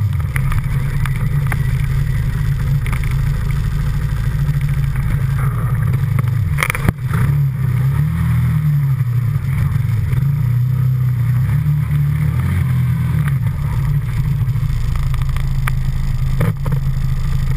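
ATV engine running on a trail ride, its pitch rising and falling with the throttle, with a sharp knock a little before the seven-second mark.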